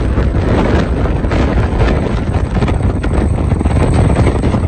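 Heavy wind buffeting on the microphone over the steady low rumble of road and tyre noise from cars driving along together.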